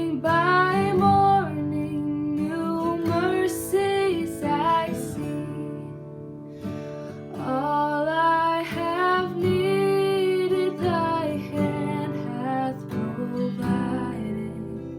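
Worship song with acoustic guitar strumming under a singing voice, the melody coming in phrases with a short pause about halfway through.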